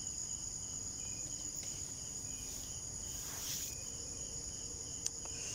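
Crickets and other night insects calling: a steady high-pitched trill with a lower, pulsing chirp over it. A faint rustle about three seconds in and a single click near the end.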